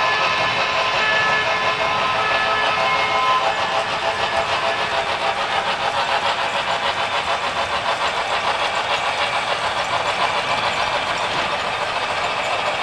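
Sound decoder (LokSound) in an HO-scale Union Pacific Big Boy 4-8-8-4 model playing a multi-tone steam whistle, held for about three and a half seconds at the start, over an even, repeating exhaust chuff that keeps going as the train runs.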